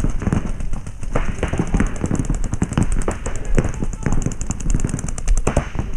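Paintball markers firing rapid strings of sharp pops, shots overlapping from more than one gun, with a fast, even run of shots in the second half.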